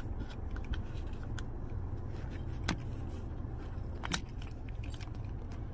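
Plastic case of a 2020 Honda Accord key fob being pulled apart by hand: light ticks, then two sharp clicks, one about halfway through and a louder one a second and a half later, over a steady low hum.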